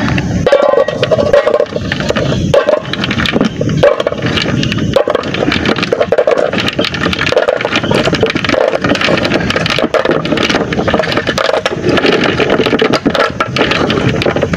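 Lokan mud clams being picked by hand from a plastic tub into a metal pot: the shells clatter against each other and the pot in many quick knocks throughout.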